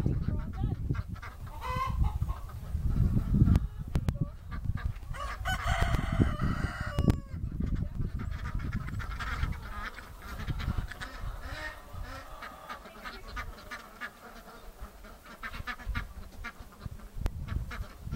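Chickens clucking, with a rooster crowing once about six seconds in. A low rumble runs through the first half.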